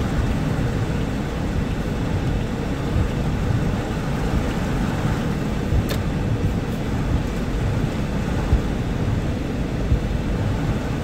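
Heavy downpour of rain falling steadily on a car's roof and windshield, heard from inside the cabin, with one sharp click about six seconds in.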